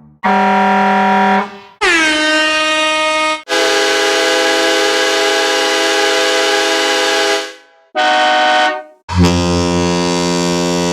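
A run of five horn blasts, each a steady pitched tone with short gaps between: a fire engine horn, a party air horn whose pitch drops as it starts, a long locomotive horn of about four seconds, a short pickup truck horn, and a deep, lower horn blast that fades near the end.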